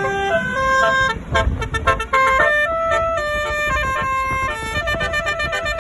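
Basuri telolet bus horn, a multi-tone air horn, playing a quick melody in stepped notes.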